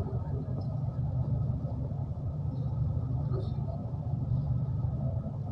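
Steady low rumble of vehicle traffic, with no clear speech over it.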